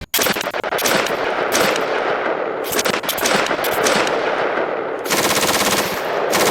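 Rapid automatic fire from airsoft guns, a dense run of quick shots that turns into a steadier, evenly spaced stream about five seconds in.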